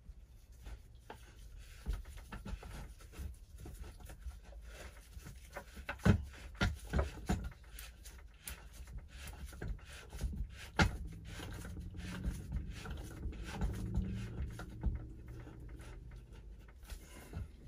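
Plastic pump head of a vacuum brake bleeder being screwed by hand onto its plastic bottle and tightened hard: coarse plastic threads clicking and rubbing, with a few sharper knocks.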